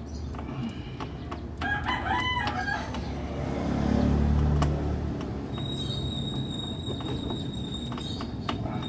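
A rooster crowing once, about two seconds in. Around the middle a low rumble swells and fades, and a steady high-pitched whine sets in just past halfway.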